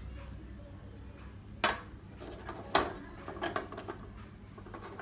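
Knocks and clacks as a panel is handled and fitted into an LED TV's back frame: two sharp knocks about a second apart near the middle, then a few lighter taps.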